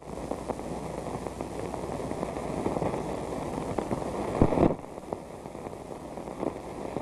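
Hiss and crackle of an old film soundtrack, scattered with small clicks. A louder thump comes about four and a half seconds in, and the hiss is lower after it.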